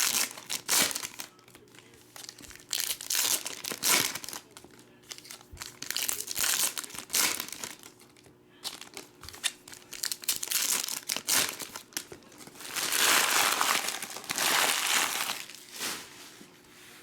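Foil trading-card pack wrappers being torn open and crinkled by hand, a run of short crackles with two longer, louder stretches of crinkling near the end.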